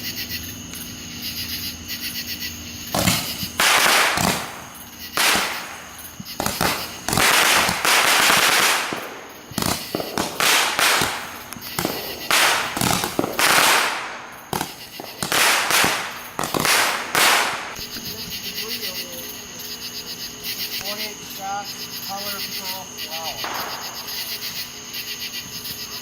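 Consumer fireworks going off, starting about three seconds in: a rapid, irregular run of loud bangs and hissing, crackling blasts lasting about fifteen seconds, then stopping.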